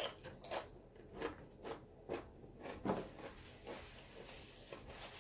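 Close-miked eating and food-handling sounds: a run of short crackly clicks and rustles, about two a second, fading after about three seconds.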